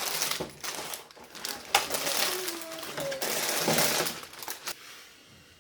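Loose plastic Lego pieces clattering and clicking as hands rummage through them, with some rustling, dying away near the end.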